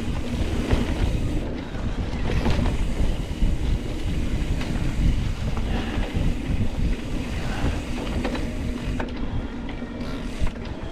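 Wind buffeting a GoPro microphone as a mountain bike is ridden downhill, with a low rumble and scattered knocks from the bike rattling over the rough trail.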